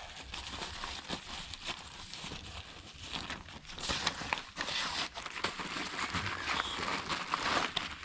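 Plastic crinkling and crumpling with many small irregular clicks, from handling a Sawyer Mini water filter kit as it is readied for its first use.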